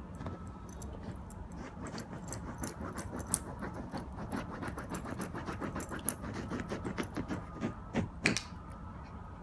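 A small dog digging and pawing at a fabric couch cushion: quick scratching strokes, a few a second, with its collar tag jingling, busier in the second half and with a couple of louder scrapes near the end.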